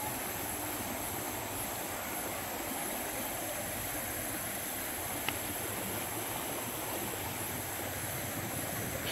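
Shallow river water flowing steadily, an even rushing sound, with one faint click about five seconds in.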